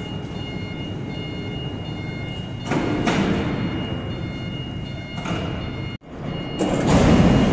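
Factory-hall industrial noise: a steady low rumble with bursts of clattering, and a repeating high electronic beeping tone that switches on and off. After a sudden break about six seconds in, the noise comes back louder.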